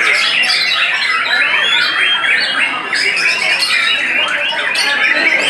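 White-rumped shamas (murai batu) singing together in a songbird contest: dense, overlapping whistled phrases and rapid chattering calls, loud and without a pause.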